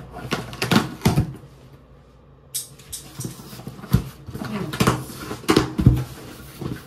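Cardboard shipping box being opened by hand on a countertop: packing tape picked and torn, flaps pulled open, with a series of sharp knocks and scrapes of cardboard.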